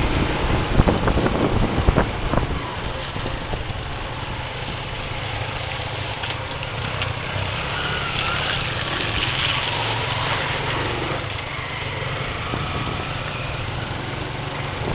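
Motor vehicle engine running steadily with a low rumble, along with the rush of travel noise.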